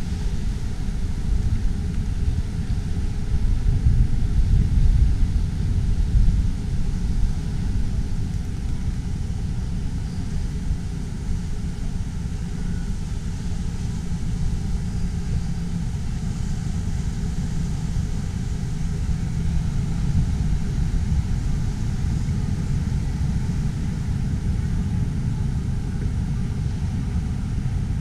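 Steady low outdoor rumble, a little louder about 3 to 7 seconds in.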